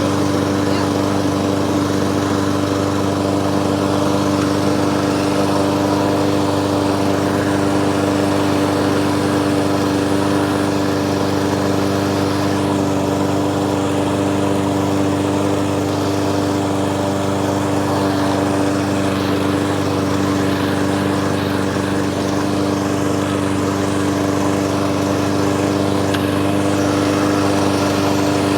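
Briggs & Stratton single-cylinder engine on a walk-behind lawn mower running steadily at constant speed, with an even, unchanging engine note.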